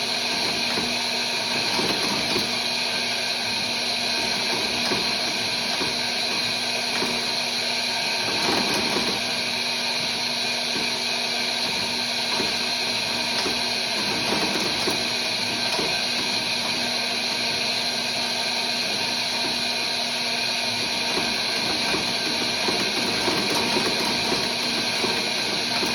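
An electric motor running steadily, a constant hum and whine with no change and no stitching rhythm.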